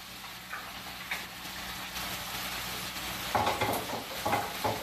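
Oil sizzling steadily in iron pots as onion and garlic fry, with pieces of cooked pork loin just put in. About three seconds in, a run of short knocks and scrapes joins the sizzle.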